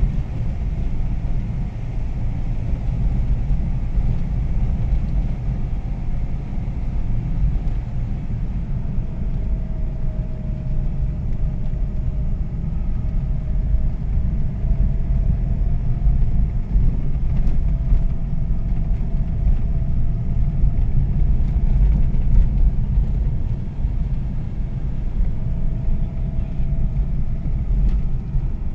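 Steady low rumble of a car driving on a rough unpaved road, heard from inside the cabin: engine and tyre noise. A faint wavering whine comes and goes from about a third of the way in.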